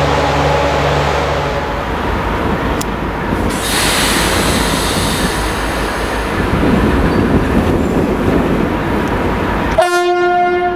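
Diesel locomotive running with a steady engine rumble, then about ten seconds in a locomotive horn sounds one sharp single-tone blast lasting about a second and a half.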